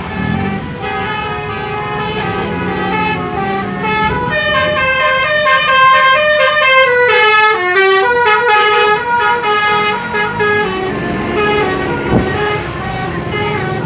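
A bus's telolet horn playing a melody of several stepping notes, growing louder toward the middle, where it runs down through a falling phrase, then fading as the bus passes.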